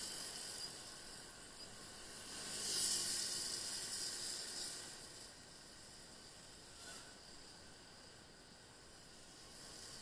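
Tyres hissing on a wet, rain-soaked road, swelling loudest about three seconds in and again more faintly later as cars go by.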